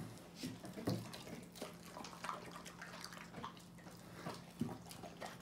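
Two Siberian huskies eating raw steak off plates: faint wet chewing, licking and lip-smacking in irregular short clicks.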